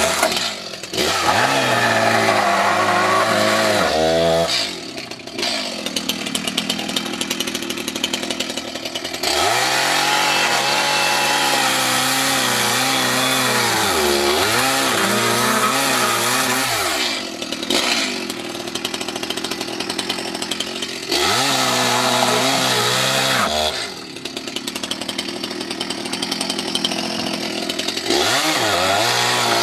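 Stihl chainsaw running hard as it cuts into an old sofa. It is revved to full throttle in several long stretches, with the pitch dropping back and climbing again between cuts.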